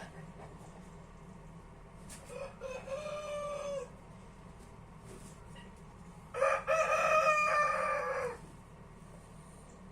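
A rooster crowing twice: a shorter, fainter crow a couple of seconds in, then a louder, longer one past the middle, each held level and dropping off at the end. A low steady hum lies underneath.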